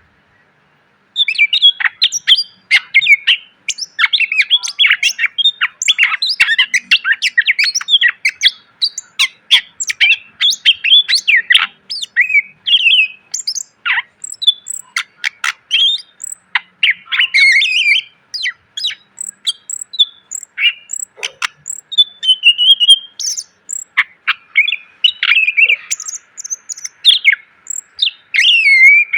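Green leafbird (cucak ijo) singing a fast, almost unbroken stream of chirps, whistles and sharp notes, full of varied fill-in phrases. It starts about a second in.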